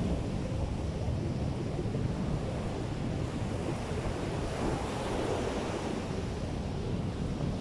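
Ocean surf breaking and washing up the shore, a steady rush of water, with strong wind buffeting the microphone.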